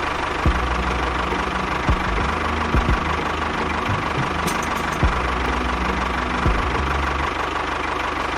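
Small engine running steadily, with several sharp knocks scattered through it.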